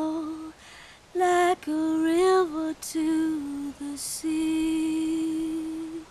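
A woman's voice singing alone, without accompaniment, in slow, drawn-out phrases that bend between notes. The song ends on a long held note that stops just before the end.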